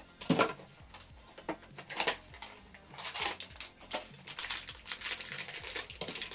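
Packaging crinkling and rustling in irregular bursts as a boxed do-it-yourself vinyl toy figure is unwrapped by hand.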